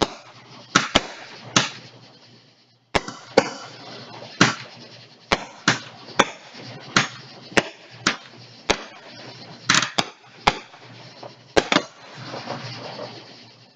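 Fireworks going off: an irregular string of well over a dozen sharp bangs and cracks, each with a short echoing tail.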